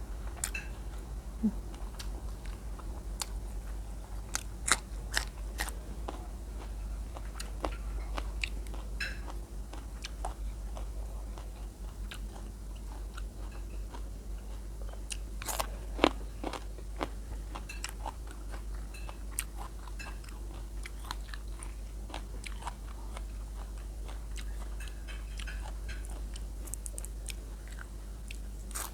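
Close-up chewing and biting of food, with scattered crisp crunches and mouth clicks, over a steady low hum.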